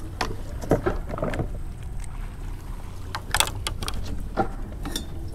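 Plastic bucket lid being pried open and gear handled on a paddleboard: several sharp clicks and knocks, over a low steady rumble.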